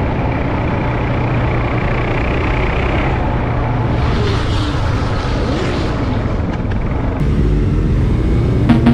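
Motorcycle engine running with heavy wind rush, as heard from a rider's camera, its pitch dipping and rising with the throttle. After a change about seven seconds in, several motorcycle engines idle together, one revving up near the end.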